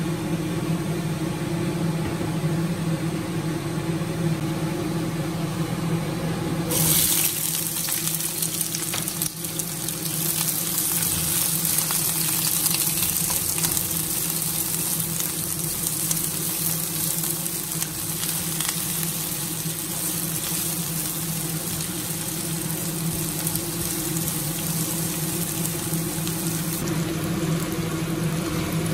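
Sliced red onions hit hot oil in a frying pan about seven seconds in and sizzle, then keep frying with a steady hiss. A steady low hum runs underneath throughout.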